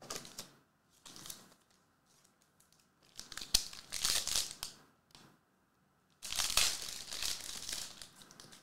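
Foil wrapper of a Prizm soccer hobby pack crinkling and tearing as it is ripped open by hand, in several bursts. The loudest come about three to five seconds in and again from about six seconds.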